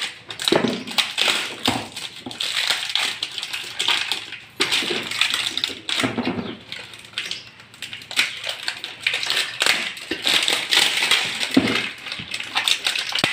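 Clear plastic shrink wrap crinkling and tearing as it is cut and peeled off a non-stick saucepan and its glass lid, with scattered light clicks and taps of the pan being handled.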